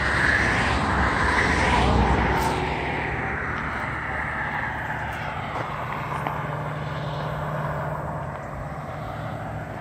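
Highway traffic going by: the loudest vehicle passes about two seconds in and its sound falls away, with a steady low engine hum after it.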